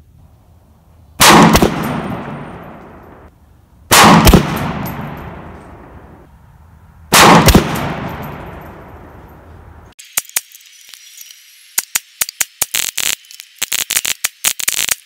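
Three single shots from a 10.5-inch AR pistol chambered in 7.62x39, about three seconds apart, each followed by a long echoing tail. About ten seconds in, a quick irregular run of sharp, thin cracks follows.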